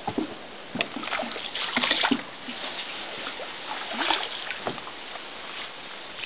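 A hand paddle dipping and pulling through shallow water beside an inflatable boat: splashing and dripping strokes, the loudest about one to two seconds in and again around four seconds in.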